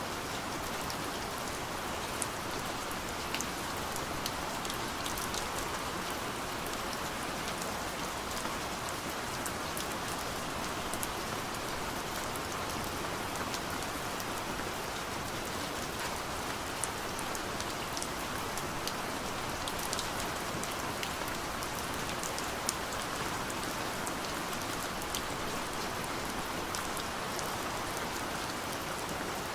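Steady gentle rain pattering on a window pane, an even hiss with scattered small drop ticks.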